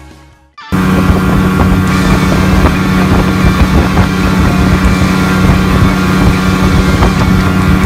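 A boat motor running steadily at speed with a strong low hum, with wind buffeting the microphone; it cuts in suddenly about a second in.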